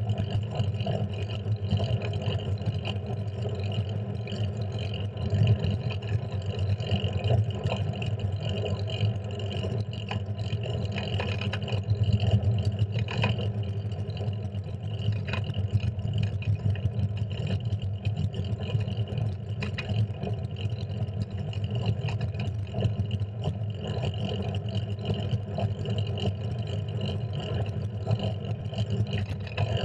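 Steady wind and road rumble from riding a fixed-gear bicycle along a street, picked up by a handlebar-mounted action camera, with a few short knocks from bumps in the road.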